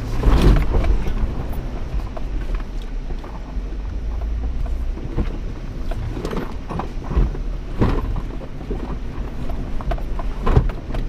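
Off-road vehicle running at low speed with a steady low rumble, with scattered sharp knocks and clunks every few seconds as it works over the trail.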